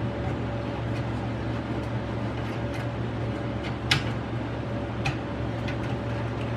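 Scattered small clicks and taps of desktop computer parts being handled and fitted, the sharpest about four seconds in, over a steady low hum.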